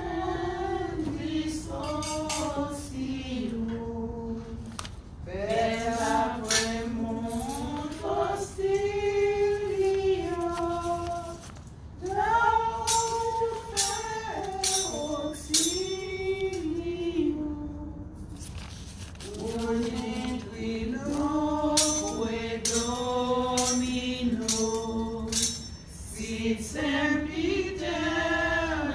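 A man's voice, with others, singing a slow Latin hymn in long held notes. Through it come repeated light metallic clinks from the chains of a brass thurible as it is swung for incensing.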